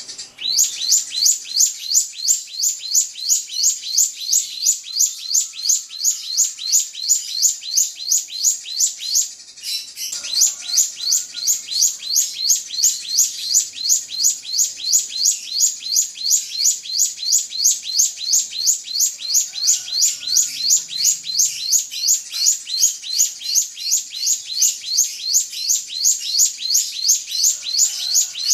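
Drongo (srigunting) calling: a long, fast train of high, sharp chirps repeated evenly about four times a second, with one brief break about nine seconds in.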